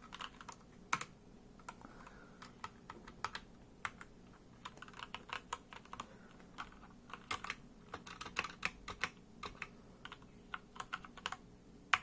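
Typing on an Asceny One 60% mechanical keyboard with Gateron brown switches: irregular runs of key clicks, faster and denser in the second half.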